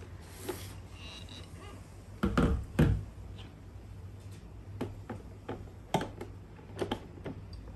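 Handling noises: a series of knocks and clicks from objects being set down or fitted together, with two louder thumps a little over two seconds in and several lighter clicks after, over a low steady hum.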